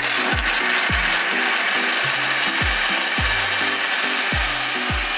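Proctor Silex countertop blender switching on and running steadily at full speed, grinding chunks of fresh coconut with water into coconut milk. Background music with a steady beat plays under it.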